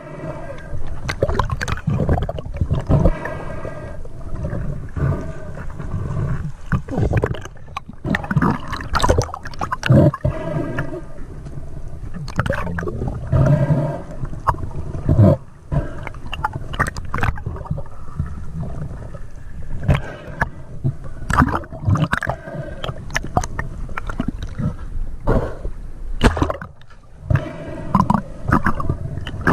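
Water gurgling and sloshing, heard by a camera in the water, in irregular uneven bursts.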